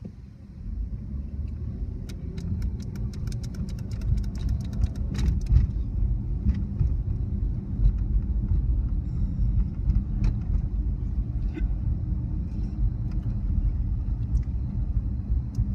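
Car driving, heard from inside the cabin: a steady low rumble of engine and road noise that grows louder as the car pulls away, starting about half a second in. A couple of seconds in comes a fast run of sharp ticks lasting about three seconds, then a few scattered clicks.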